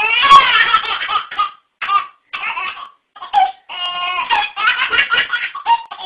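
A baby laughing hard in a string of short, high belly-laugh bursts with brief gaps, with a longer held laugh about four seconds in.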